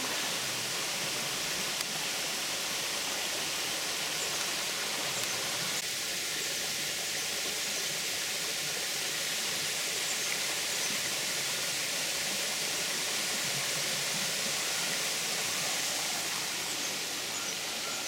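Steady rush of water from a small woodland waterfall and a shallow creek splashing over rocks.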